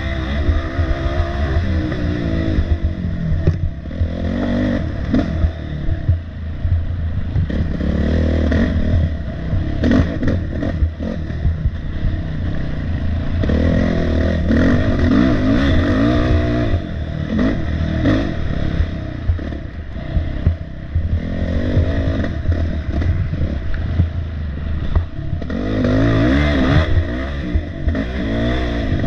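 Off-road dirt bike engine, heard from on the bike, revving up and down continually as it is raced along a rough wooded trail. Frequent short clattering knocks run through it.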